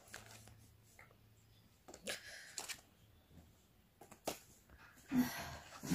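Stiff printed paper quiz cards being picked up and handled: a few brief rustles and flicks, quiet in between.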